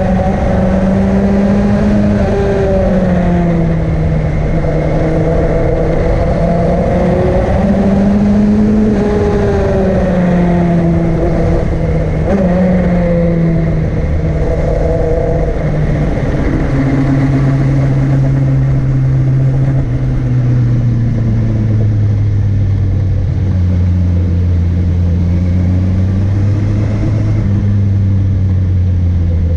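A vehicle engine pulling uphill, its pitch rising and falling with the throttle, then settling lower and steadier for the second half.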